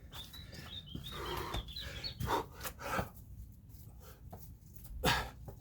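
A man panting and breathing hard in the middle of a set of Navy SEAL burpees, with a few short thumps of his body moving against the floor.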